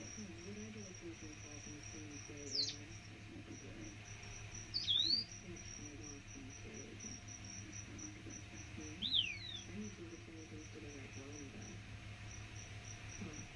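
A bird gives sharply falling high whistled calls three times, about two and a half, five and nine seconds in, over an insect chirping in a steady fast pulse of about four chirps a second.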